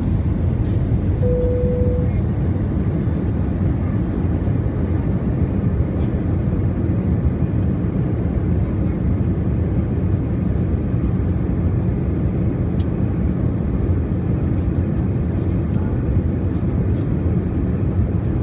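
Steady cabin noise inside an Airbus A320 on final approach: a deep, even rumble of the engines and airflow over the fuselage. A brief steady tone sounds about a second in.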